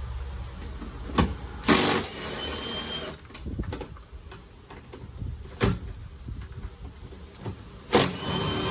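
Power driver with a T50 Torx bit running in two bursts with a slightly rising motor whine, backing out a seat-belt anchor bolt, with a few short knocks of tool on metal between them.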